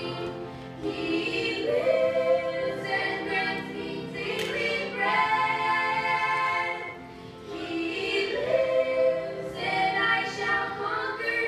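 A small group of women singing together, holding long notes in phrases, with a short breath pause about seven seconds in.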